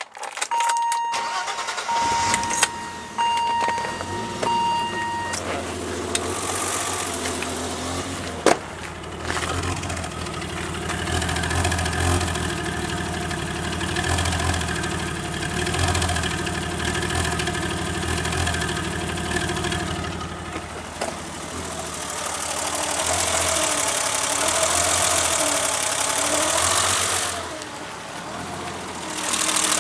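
Car engine starting and then idling roughly, with an uneven, stumbling low beat from a bad misfire, and a rise in engine speed in the last few seconds. The misfire followed the timing belt jumping a tooth; the uploader traced the dead cylinder to the distributor cap arcing, so that the number-two spark plug did not fire. A beeping tone sounds on and off for the first few seconds.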